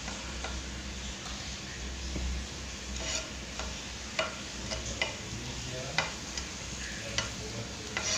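Sliced shallots and garlic sizzling in hot cooking oil in a frying pan, with sharp taps of a metal knife scraping against the wooden cutting board and pan about once a second from about three seconds in.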